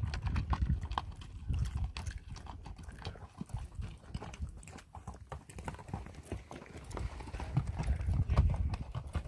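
Mule train's hooves clip-clopping as the mules file past, many uneven hoof strikes one after another.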